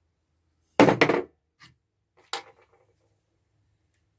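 Sharp metallic knocks and clinks of hand tools on a wooden workbench: a close cluster of loud ones about a second in, then a single knock with a short rattle a little after two seconds.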